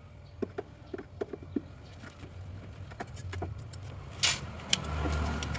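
Light metallic clicks and knocks of tools and refrigerant tubing being handled during compressor replacement, with a louder scrape about four seconds in, over a steady low hum.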